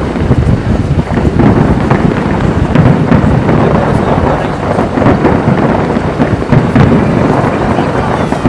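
A fireworks display in a dense barrage: many overlapping bangs and crackles merging into a loud, continuous rumble.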